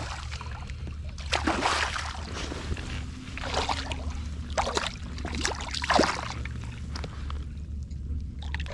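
Water splashing and sloshing in several separate surges, over a steady low wind rumble on the microphone.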